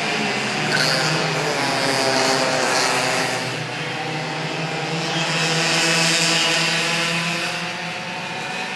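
A pack of racing karts passing at speed, several kart engines running at high revs at once, their notes overlapping and the sound swelling and fading as the karts go by.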